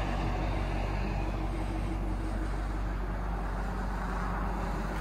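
2012 Chevrolet Camaro SS's 6.2-litre V8 idling steadily.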